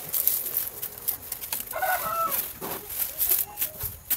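Leaves of a potted peace lily rustling and crackling as hands work through them, with a chicken clucking once about two seconds in.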